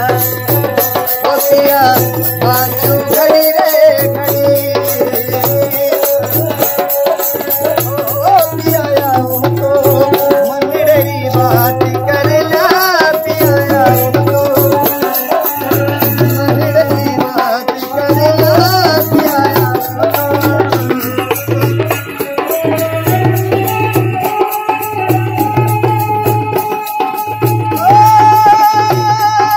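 Rajasthani folk music: a ravanahatha bowed fiddle playing a wavering melody, the bells on its bow jingling, over a dholak drum keeping a steady beat, with a man singing.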